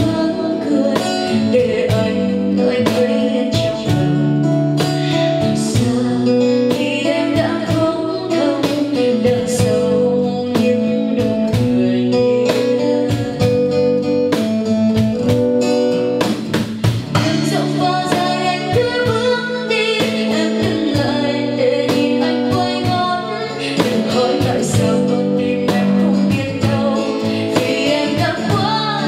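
A woman singing a Vietnamese pop ballad live, accompanied by a strummed steel-string acoustic guitar and hand-played cajon beats.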